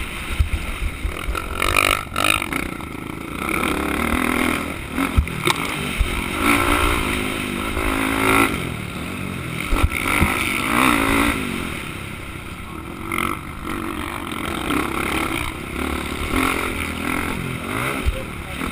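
Motocross bike engine heard onboard, revving up and falling back over and over as it accelerates and shifts around the dirt track, with a few sharp knocks along the way.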